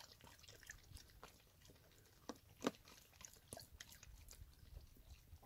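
Faint, irregular wet clicks and smacks of a dog lapping water poured from a plastic water bottle, with two louder smacks about halfway through.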